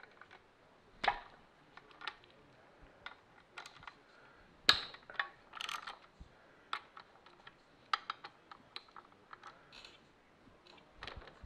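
Scattered metallic clicks and clinks of a wrench and socket ratchet loosening the clutch bolts on a BMW airhead engine's flywheel, with one sharper clink a little under halfway through.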